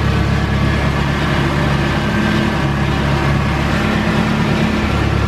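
1993 Nissan 240sx's KA24DE four-cylinder engine idling steadily, with a weird whining noise running over the engine sound. The owner cannot tell what is causing the whine.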